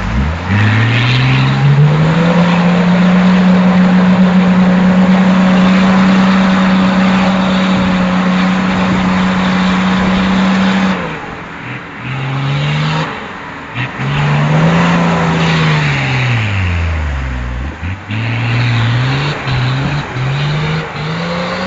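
Off-road 4x4's diesel engine revved hard and held at high revs for about ten seconds while its wheels spin and throw mud, then the revs drop suddenly and rise and fall in short bursts of throttle as it claws its way out of the mud.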